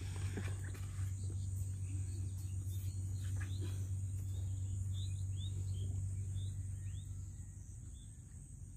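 Outdoor rural ambience: a steady low hum and a steady high insect-like hiss, with a run of short, falling bird chirps in the middle.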